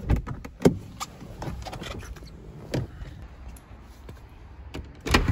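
Scattered knocks and clunks as a car door and then a house's front door are handled, over a low handling rumble, with the loudest clatter near the end.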